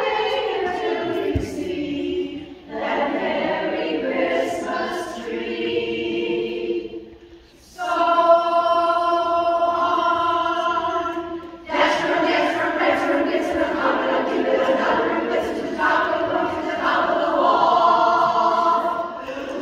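Barbershop chorus singing a cappella in four-part close harmony, with short breaks between phrases and one chord held steady for about four seconds near the middle.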